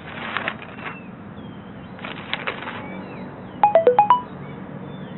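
A quick electronic beep melody of about five short notes, stepping down in pitch and then back up, like a phone ringtone. It plays over a low steady hum, with two earlier stretches of hissing noise.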